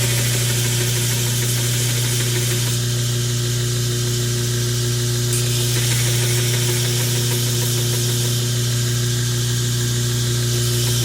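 Electric grinder's motor running with a steady, loud hum, with a hiss of the abrasive against metal that swells and fades as the peened rivet ends are ground flat.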